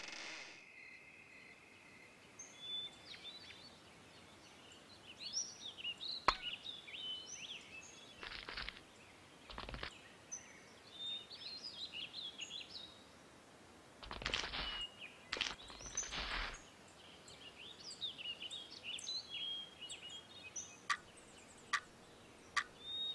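Birds chirping and singing, many short high calls. A sharp click about six seconds in, and a few brief rushes of noise around the middle.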